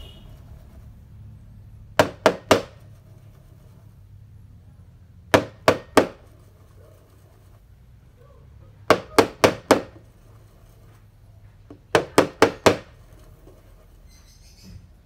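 Stainless steel milk pitcher knocked against the counter in quick sets of three or four taps, four sets a few seconds apart, to burst the large bubbles in milk frothed with a French press.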